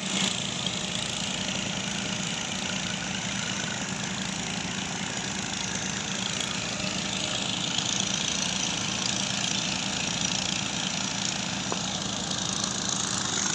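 An engine running steadily at an even speed, a constant hum with a wide hiss over it.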